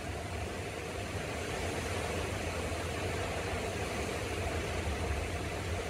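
A steady low mechanical hum over a constant hiss, unchanging throughout.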